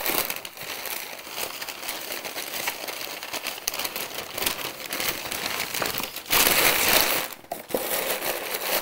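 Sheets of thin white packing paper being crumpled and pulled about by hand, a continuous rustling crinkle that is loudest for just under a second about six seconds in.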